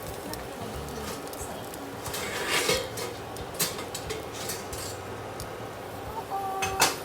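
Kitchen utensil knocking and scraping against a non-stick frying pan while French toast fries, with a few separate knocks and a short ringing clink near the end.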